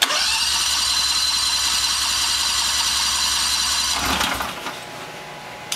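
Electric starter cranking a newly installed Honda V-twin engine for about four seconds with a steady whine; the engine does not catch, and the starter winds down and stops.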